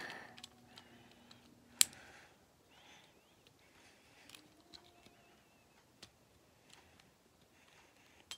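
Quiet handling of a plastic Beyblade spinning top, its burst parts being fitted back together: scattered faint clicks, with one sharp click about two seconds in.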